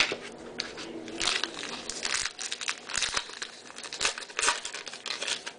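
Baseball card pack wrapper crinkling and tearing as a pack is ripped open by hand, in a string of short rustling bursts.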